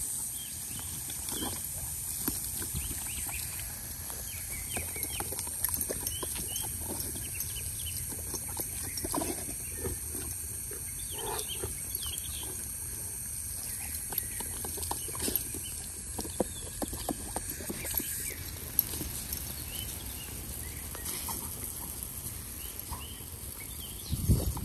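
Garden hose spray hissing and splattering on dry ground while dogs lunge and bite at the stream, with many short irregular snaps and splashes and the dogs' breathing mixed in.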